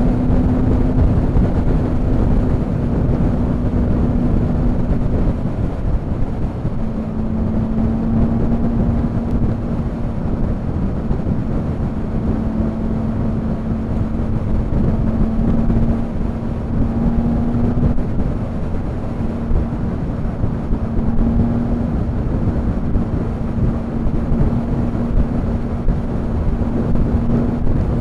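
Motorcycle riding at a steady cruising speed: heavy wind rush over the microphone with a steady engine drone beneath it, which drops out briefly about five seconds in and comes back a second later.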